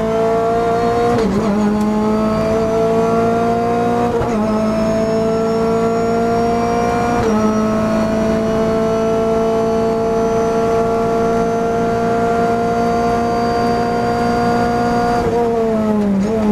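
Renault Clio Cup race car's engine heard from inside the cockpit under full throttle, the revs climbing and dropping sharply at three upshifts about one, four and seven seconds in. It then pulls steadily at high speed, and near the end the revs fall and bounce as the car slows for a corner and shifts down.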